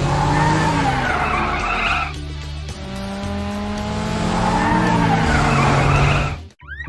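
Cartoon car sound effects: tyres screeching in two long skids, the second a few seconds after the first, over background music.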